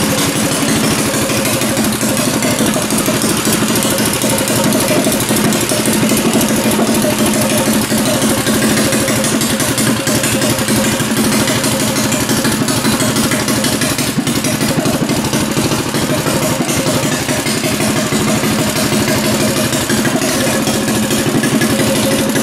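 Mini bike's small single-cylinder engine running steadily at idle.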